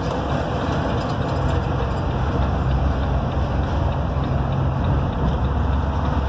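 Steady low engine drone and road noise heard inside the cab of a moving vehicle.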